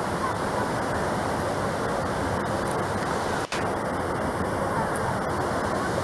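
Steady rush of a waterfall pouring over a rock ledge into its plunge pool, cut off for an instant about halfway through.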